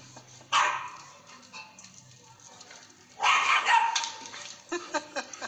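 A dog barking: one loud bark about half a second in, another about three seconds in, then several short barks in quick succession near the end.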